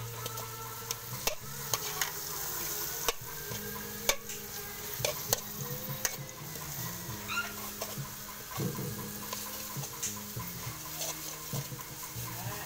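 Metal spatula scraping and clinking against a metal wok while sliced lemongrass, chili and paste sizzle in hot oil, with sharp clicks of the spatula every second or so over a steady sizzle.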